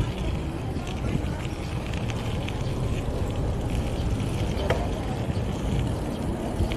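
Riding a bicycle along a city street: steady road and tyre rumble with wind on the microphone and small rattling clicks from the bike.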